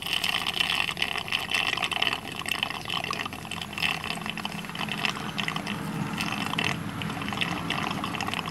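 Small 5-watt electric honey suction pump slurping stingless bee honey and air up a clear tube from the opened honey pots, an irregular gurgling, crackling suck. The pump is weak for the job: the owner finds it lacks power and draws slowly.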